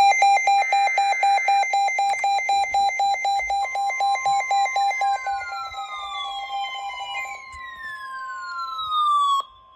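Weather radio alert tones: short buzzy data bursts, then, about a third of the way in, the steady single-pitch weather radio warning alarm tone, signalling a new warning broadcast. A second electronic alarm beeps rapidly over it and stops about three-quarters through. Several falling electronic sweeps sound near the end.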